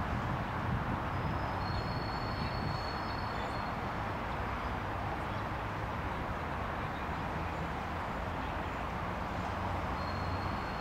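Steady, even roar of distant road traffic, with a low rumble underneath. A faint high thin tone sounds briefly twice, about two seconds in and near the end.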